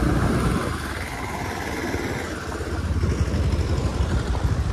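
Motorcycle engine running, dropping back a little about a second in and picking up again about three seconds in.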